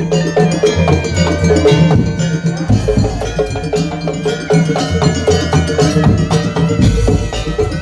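Madurese ul daul (tong-tong) percussion ensemble playing: rapid, dense strikes of metal bells and wooden percussion over sustained low tones that change pitch every second or so, with a melody line above.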